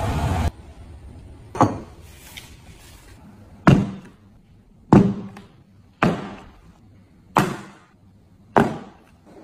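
A series of six sharp knocks or taps, one to two seconds apart, each dying away quickly. A loud hiss cuts off about half a second in.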